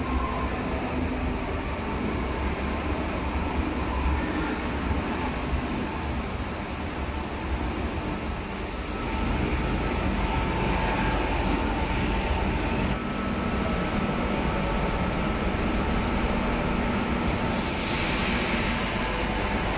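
Madrid Metro Serie 2000 electric train running into an underground station over a steady low rumble, with a high-pitched metallic squeal from its running gear. The squeal grows to its loudest about six to nine seconds in, then comes back briefly near the end.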